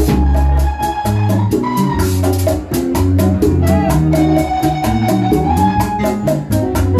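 Live band playing Latin dance music: a strong bass line, guitars and congas with shaken percussion on a quick, even beat.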